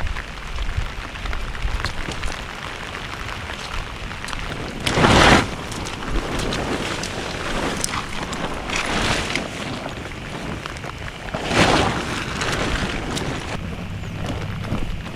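Steady rain falling, with wind and many small drop ticks; it swells louder twice.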